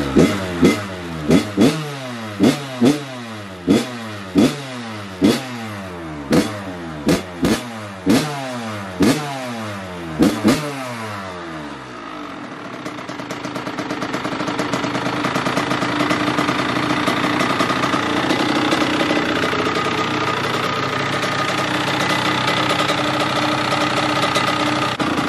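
Kawasaki KX100 two-stroke dirt bike engine being blipped on the throttle, one to two sharp revs a second, each falling back toward idle. After about eleven seconds the revving stops and the engine runs steadily.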